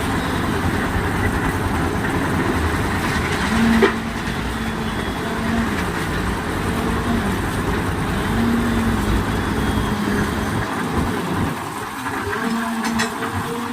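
Engine-driven concrete mixer and concrete lift machinery running steadily, with a faint whining tone that dips and recovers. There is a single sharp knock about four seconds in.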